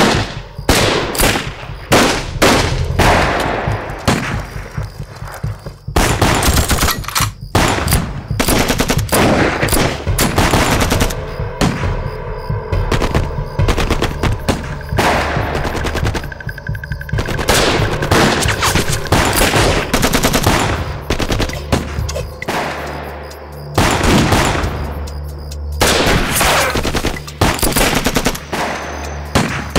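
Sustained battle gunfire: rapid bursts and volleys of shots, one after another almost without pause, briefly easing twice.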